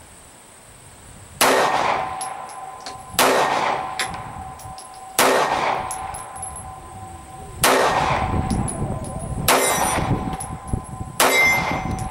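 Colt Mustang Pocketlite .380 Auto pocket pistol fired six times in slow, evenly spaced shots, about two seconds apart. This is a full six-round magazine. Each shot is followed by a lingering metallic ring.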